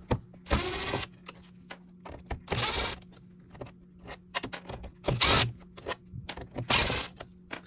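Power drill with a 5.5 mm socket running in four short bursts of about half a second each, backing out small screws from the back of a plastic instrument cluster, with light clicks between the runs.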